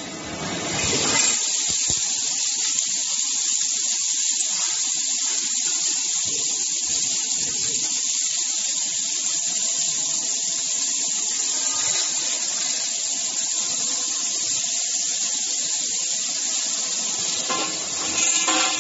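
Automatic scaffolding-column welding machine at work: a steady hissing sizzle of the welding arcs, growing louder and rougher near the end.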